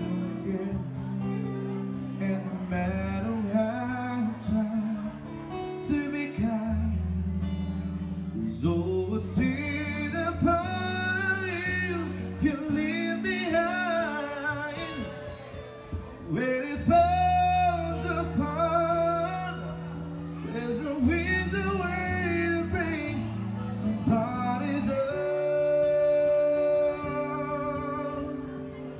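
Live band music: a man sings, with a strummed acoustic guitar and a second guitar, over low held bass notes. Near the end he holds one long high note.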